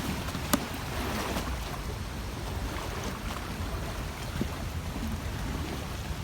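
Steady rush of the waterfall and river water with wind buffeting the microphone, and a single sharp click about half a second in.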